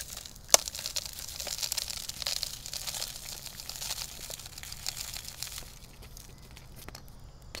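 Plastic zip-top bag crinkling as it is handled, with one sharp click about half a second in; the crinkling fades over the last two seconds.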